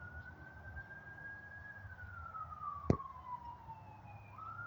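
A siren wailing, its single tone slowly rising and falling in long sweeps. A single sharp click about three seconds in.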